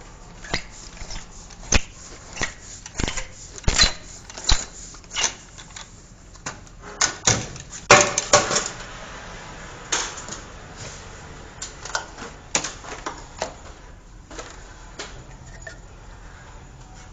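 Scattered knocks, taps and clicks of plastic drain pipe and fittings being handled and fitted, with a busier burst of clatter about eight seconds in.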